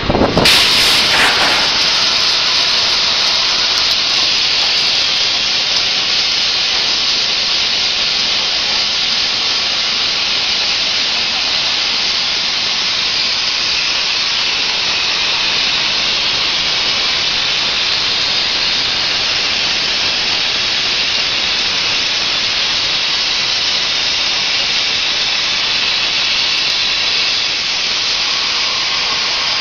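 Plasma cutting torch cutting metal: a loud, steady hiss of the arc and air jet. It starts abruptly, with some crackle in the first few seconds.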